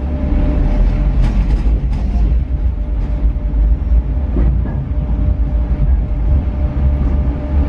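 Steady low rumble of a moving vehicle heard from inside, with a faint steady whine and a few light rattles about a second in.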